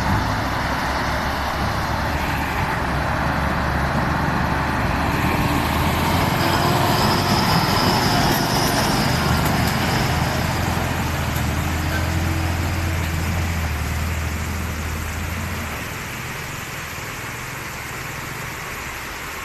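Loaded dump truck's diesel engine running steadily under load as it drives out of a shallow river onto gravel, over the rush of the river water. The engine note drops and fades about sixteen seconds in as the truck pulls away.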